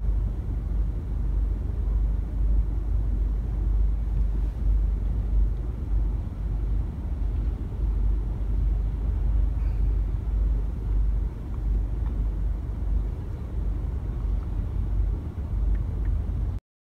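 City intersection traffic, with cars and B2-class trams, heard as a steady low rumble. It cuts off suddenly near the end.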